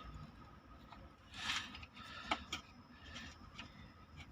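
Small handling sounds while working on the pump's wiring: a brief rustle about a second and a half in, then a sharp click, with a few fainter ticks.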